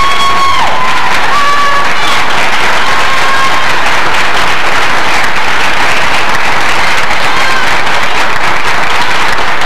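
Audience applauding, with a few high shouts and cheers in the first few seconds.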